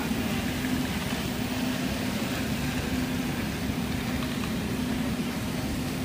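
Rubber hose extrusion line machinery running: a steady machine hum with a constant low tone over an even hiss of factory noise.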